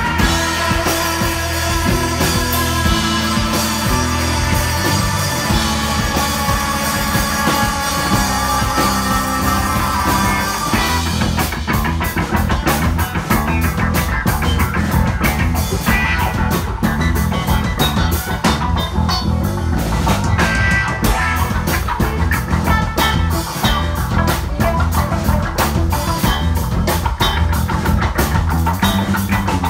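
Live instrumental psychedelic rock played by electric guitar, bass and drum kit. Held, ringing chords for about the first eleven seconds, then the drum kit comes in with a dense, fast, driving beat under the guitars.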